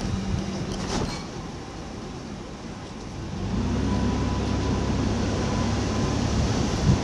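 An engine running steadily with a low, even hum. It eases off for a couple of seconds and then comes back stronger and steady about three seconds in.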